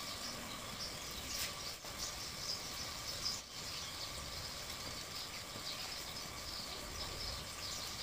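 Outdoor ambience of insects and birds chirping steadily, with a faint steady hum underneath.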